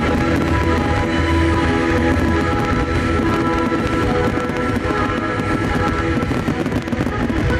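Loud music with long held notes, with the rapid crackling and popping of a dense fireworks barrage mixed in.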